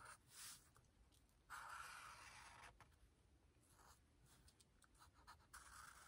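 Faint squeak and scratch of a black Sharpie permanent marker drawn across paper, in several separate strokes, the longest lasting a little over a second.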